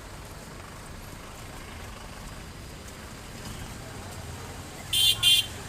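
Steady low rumble of rain and street traffic. About five seconds in come two short, loud, high-pitched beeps in quick succession.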